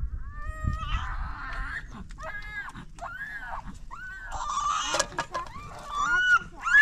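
Chickens clucking and squawking in a string of short, arched calls that grow louder and harsher toward the end.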